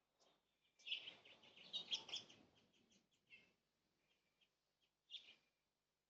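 Faint chirps of small birds, short high notes scattered throughout. A louder rustle runs from about a second in for a second or so, with another brief one near the end.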